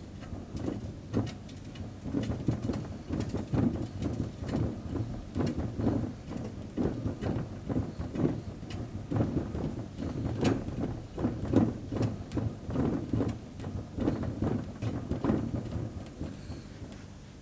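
A hamster's exercise wheel turning, rattling and clicking on its axle with an uneven run of knocks over a low rumble. It stops about a second before the end.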